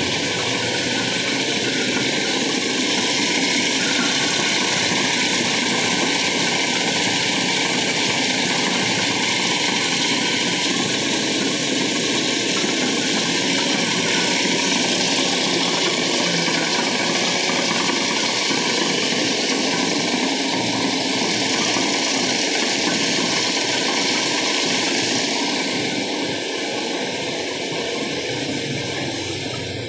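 Steady running noise of metalworking workshop machinery, an even whir with no distinct strokes or speech. It eases slightly near the end.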